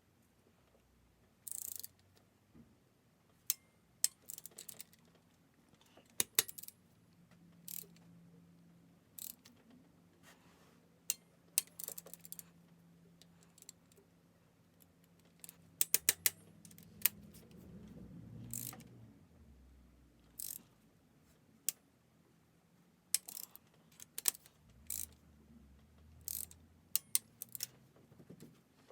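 Ratchet and torque wrench clicking while cylinder head bolts are tightened to the first-stage 30 ft-lb torque spec: scattered sharp metal clicks, some in short quick runs.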